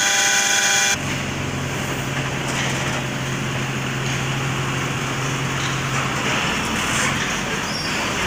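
A hydraulic power pack's electric motor and pump whining steadily for about a second, cut off abruptly. Then a broad machinery rumble around a truck on a tippler platform, with a steady low hum that stops about six and a half seconds in.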